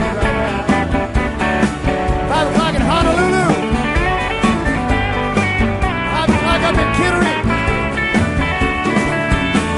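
Instrumental break of a country song: a guitar lead with bent notes about two to three seconds in, over a steady drum beat and bass.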